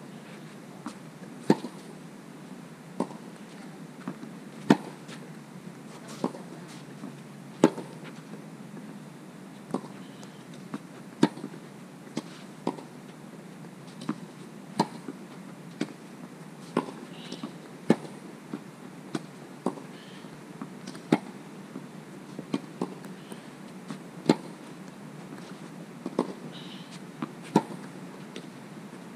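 Tennis balls struck back and forth by racquets in a baseline rally: sharp pops, the near player's shots loudest about every three seconds, with fainter hits and ball bounces between.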